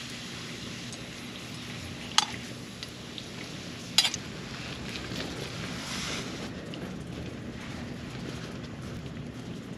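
Metal tongs clicking sharply against a frying pan twice, about two and four seconds in, as thin-sliced beef brisket is lifted out of the pan, over a steady hiss.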